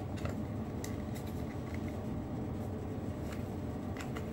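Faint scattered clicks and taps of a hollow plastic tube being handled and fitted against a plywood stand, over a steady low room hum.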